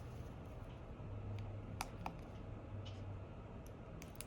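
A few faint, scattered light clicks of small parts and tools being handled on a phone, over a low steady hum.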